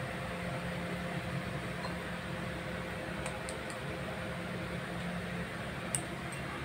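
Steady background hum and hiss of a running kitchen appliance or fan, with a few faint ticks.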